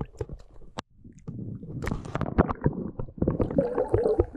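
Water splashing and gurgling, heard through the microphone of an action camera dipped below the surface as a perch is released beside the boat. A sharp click and a moment of near-quiet just under a second in, then dense, muffled sloshing.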